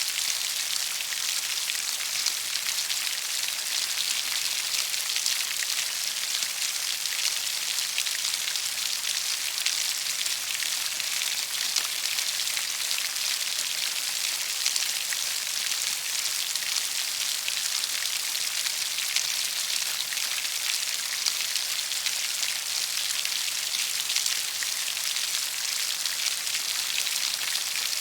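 Steady rainfall: a dense, even hiss of drops pattering on a surface, with fine individual drop ticks throughout.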